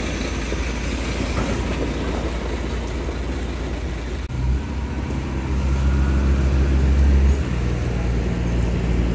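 A motor vehicle's engine running, with its low hum growing louder about four seconds in and holding steady after that.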